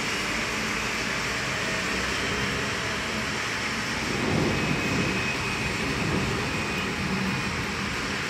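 Steady hiss of heavy rain and car traffic on a wet road, with a low rumble swelling about four seconds in.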